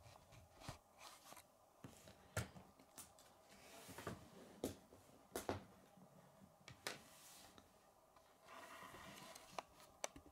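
Faint handling sounds of a plastic K'nex model on a wooden table: about ten scattered light clicks and knocks, with a brief soft rubbing near the end.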